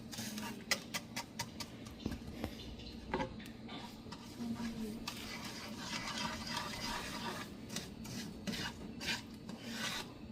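A utensil scraping and stirring in a hot pan as the sugar in it melts into caramel, with scattered clicks and a rasping scrape.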